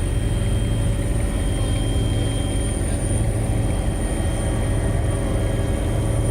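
Helicopter in flight: a steady engine and rotor drone with a thin, high, steady whine over it.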